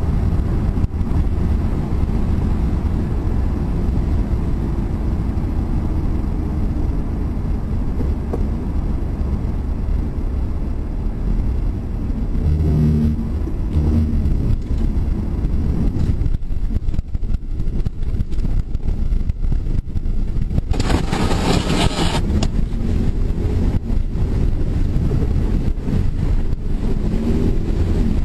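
Steady road and wind noise inside a Ford Mustang's cabin at highway speed, a low rumble throughout. About three-quarters of the way through comes a short loud burst of harsh noise, and another near the end, as the car drifts off the pavement.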